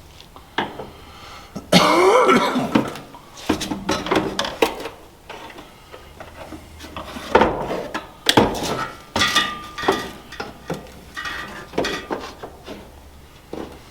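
Irregular clinks, clanks and knocks of hand tools and metal parts being handled and set down, with a louder, busier patch about two seconds in.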